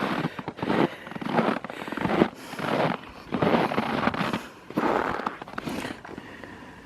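Footsteps crunching and creaking in cold, dry snow, a walker's steady pace of about eight steps that stops near the end. The creak underfoot is the sign of snow in hard frost.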